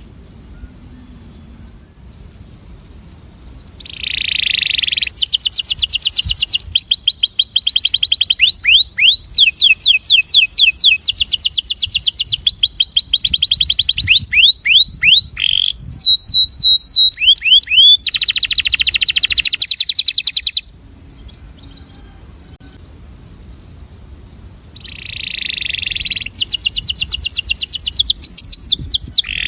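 Male canary singing a breeding male's attraction song: long phrases of very fast trills and rapidly repeated notes, beginning about four seconds in and broken by a pause of a few seconds about two-thirds of the way through before the song resumes. A faint hiss runs underneath.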